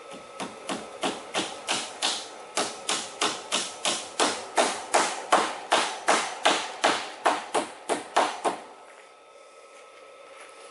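Claw hammer striking fasteners to pin welded wire mesh to a wooden 2x4 frame: about two dozen quick, sharp blows, roughly three a second, stopping a couple of seconds before the end.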